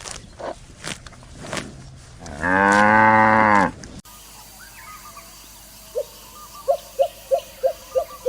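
A few sharp knocks, then a cow mooing once, a loud call lasting just over a second. After a cut, a rapid series of short, pitched animal calls repeats about three times a second near the end.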